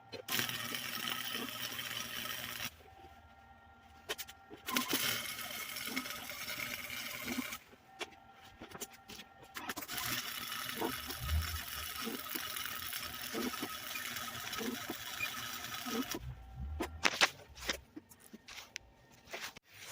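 Electric arc welding: a crackling, sizzling hiss in three runs of a few seconds each, with short pauses and a few clicks between the runs.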